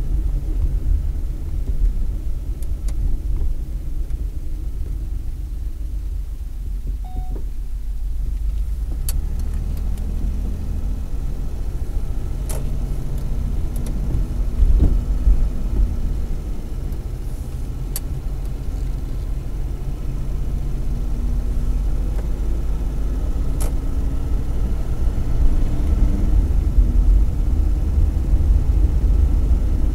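Inside the cabin of a Volvo 264GL driving slowly at night: the quiet 2.7-litre PRV V6 running under low road and tyre rumble, with a few faint clicks. The rumble grows louder near the end as the car picks up speed.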